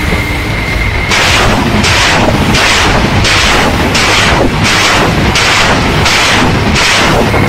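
RBU-6000 Smerch-2 anti-submarine launcher firing a salvo of RGB-60 rocket depth charges: starting about a second in, a rapid string of loud rocket launches, each a sudden blast that trails off, about one and a half a second.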